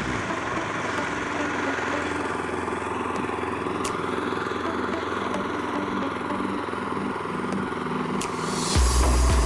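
Neva walk-behind tractor's engine running steadily under load while pushing snow with a front blade. Near the end a loud low beat cuts in.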